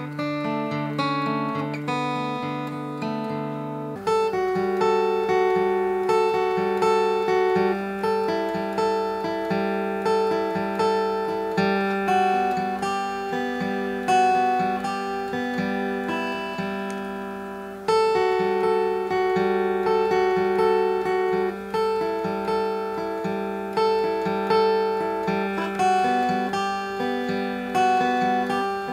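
Background music: acoustic guitar picking a melody, turning louder and fuller about four seconds in.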